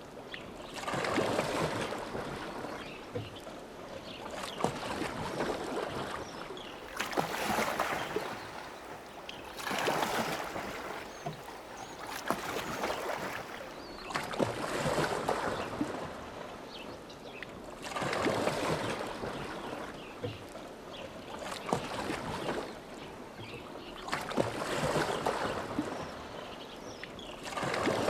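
Oars of a rowboat dipping and pulling through lake water, splashing in a steady rhythm of a stroke every three seconds or so, with quieter water sounds between strokes.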